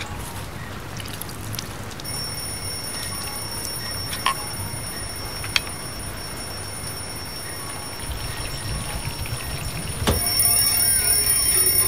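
An alarm ringing in steady high-pitched tones, which get louder and busier about ten seconds in. There are two sharp clinks of kitchen utensils midway.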